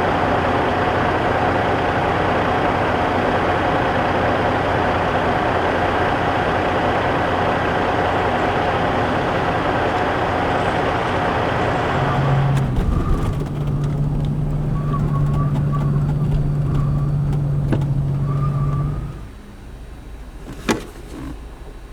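Loud steady road and engine noise of a motor vehicle. About halfway through it changes to a steady low engine hum, then drops off sharply near the end, with a single sharp click shortly after.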